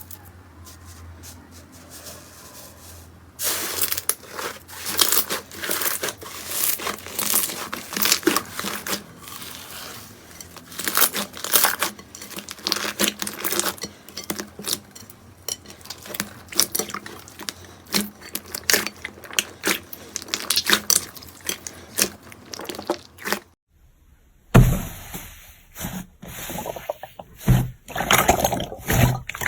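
Slime being squeezed, poked and stretched by hand, making fast irregular crackling and popping clicks. After a brief break near the end, another batch of slime starts, with deeper squelching thuds among the clicks.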